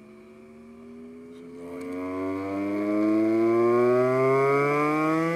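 A Pioneer CK-3 boombox plays a tape through a bare, unmounted woofer: a low, buzzy tone with many overtones glides slowly upward in pitch, swelling louder about two seconds in.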